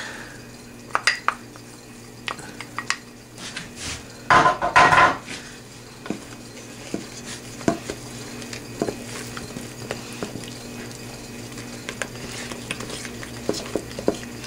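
A utensil scraping and tapping against a glass measuring cup and a metal saucepan as crunchy peanut butter is scooped into the boiling chocolate mixture and stirred, with a louder clatter about four seconds in.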